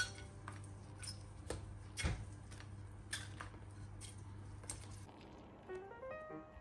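Light clicks and taps of baguette slices being set down in a glass baking dish, with a steady low hum underneath. Near the end the hum stops and a plucked guitar tune comes in.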